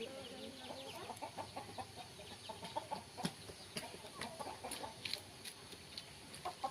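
Chickens clucking, a run of short repeated calls, with a few sharp high clicks and chirps among them.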